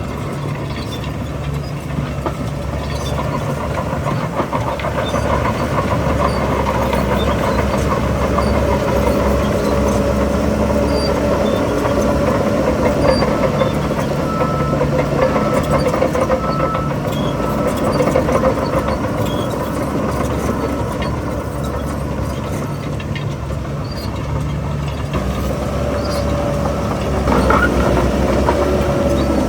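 Heavy diesel engine of a Shantui DH17 C3 crawler bulldozer running under working load, growing louder a few seconds in and changing pitch near the end.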